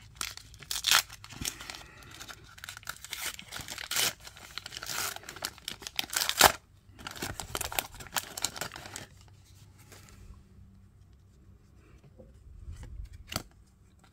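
Foil wrapper of a Match Attax trading-card pack being torn open and crinkled by hand. The tearing and crinkling is loud and crackly for about nine seconds, then gives way to quieter handling with a few small clicks as the cards come out.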